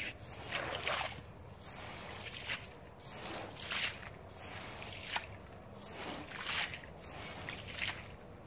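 Squeegee pushed in repeated strokes, about one a second, across a soaked rug, squishing out soapy water with a wet swish and dribble.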